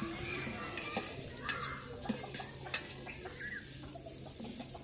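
Sliced onions sizzling in hot sunflower oil in a large aluminium pot as a long metal ladle stirs them, the ladle scraping and clinking against the pot several times. The onions are at the early stage of frying, still pale, on their way to golden brown.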